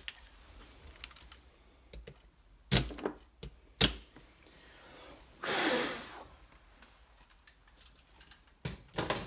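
Scattered clicks and knocks of hard plastic and metal power-tool parts being handled and set down. There are two sharp knocks about three and four seconds in, a brief scraping rustle around the middle, and a quick run of clicks near the end.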